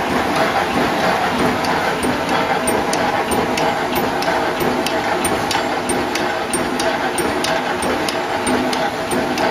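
Full-automatic welded wire mesh machine running, in-roll type: a steady mechanical hum and clatter with sharp regular clicks about twice a second.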